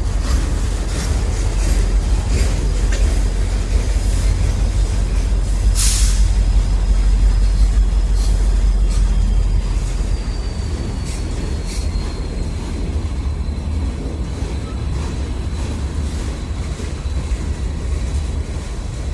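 Freight cars rolling past close by: a steady low rumble with wheels clicking over the rail joints and a thin high wheel squeal. One loud bang about six seconds in.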